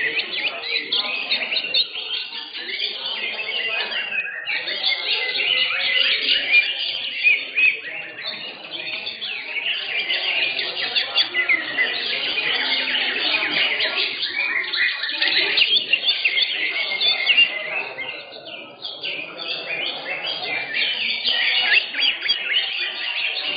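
Several greater green leafbirds (cucak hijau) singing at once, a dense, unbroken mix of overlapping chirps and warbled phrases.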